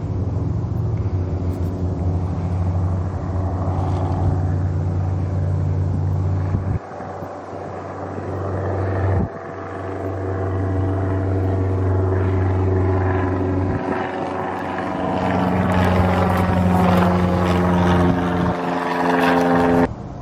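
Single-engine light propeller plane flying overhead, its engine and propeller giving a steady drone. The sound grows louder and takes on a sweeping, phasing quality in the last few seconds as the plane passes over, then cuts off abruptly.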